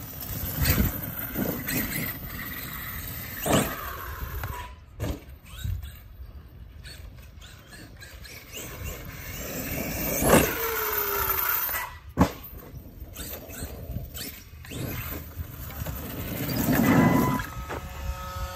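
Arrma Kraton EXB 1/5-scale RC monster truck's electric brushless motor whining up and down as it accelerates and slows over grass and dirt, with tires tearing at the ground. A few sharp thumps come through, the loudest about ten seconds in.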